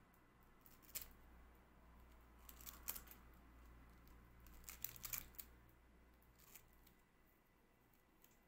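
Rubber bands being pulled off a silicone casting mould, giving a few faint, sharp snaps and clicks: one about a second in, a small cluster around three seconds and another around five seconds.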